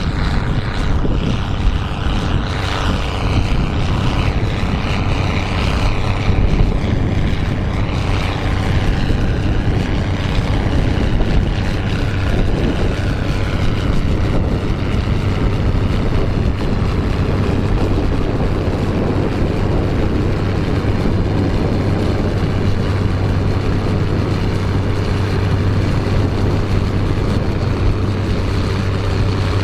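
Tractor engine running steadily under load while pulling a plough, a continuous low drone.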